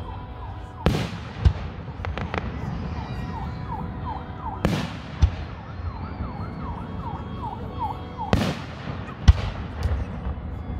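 Aerial fireworks shells launching and bursting: a string of sharp booms and bangs, the loudest about a second and a half in and again near the end, over a low rumble. Through the middle, a short rising-and-falling tone repeats about twice a second.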